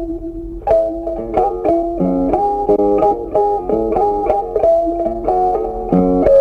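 Instrumental background music: a plucked guitar playing a melody of quick notes.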